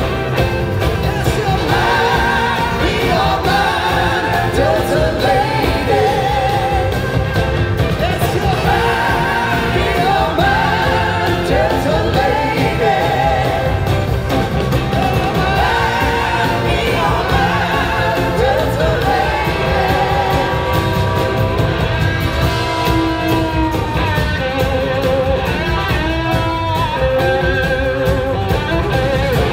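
Live rock band playing with lead vocals, electric guitars and drums, recorded from the audience in a large theatre.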